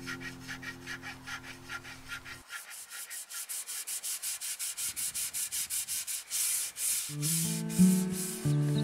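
Carving knife scraping along the grooves between carved snake scales on a wooden walking stick, in quick even strokes about four a second. Acoustic guitar music plays under it at first, drops away after about two seconds, and comes back near the end.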